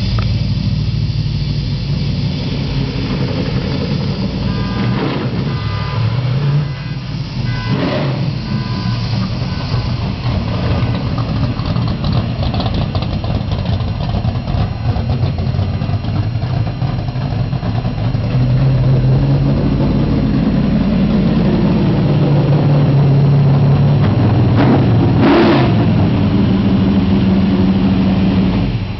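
1993 Ford Thunderbird NASCAR Cup car's V8 running loud, with a few brief throttle blips. It gets louder for the second half and cuts off sharply near the end.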